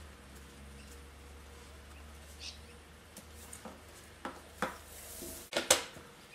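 Paper and card being handled: scattered soft taps and rustles, loudest near the end, over a low steady hum.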